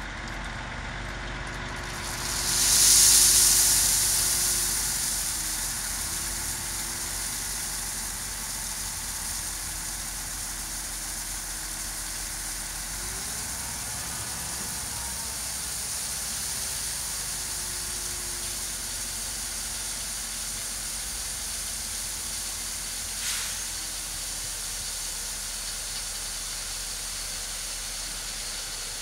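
Truck and half-pipe steel tipper trailer running while the body is raised hydraulically to tip gravel: a steady hiss over a faint engine hum. A loud hiss swells about two seconds in and fades over a few seconds, and there is one short knock late on.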